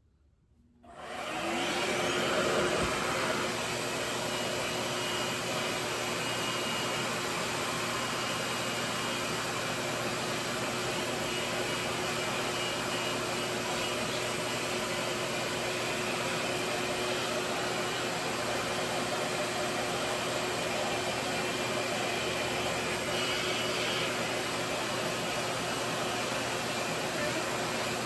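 RevAir reverse-air hair dryer starting up about a second in, then running steadily, its suction wand drawing air with an even rushing sound and a faint steady hum.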